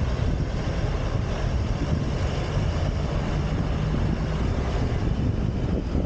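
Wind buffeting the microphone held outside a moving car's window, over the steady rumble of the car driving on a cobblestone street.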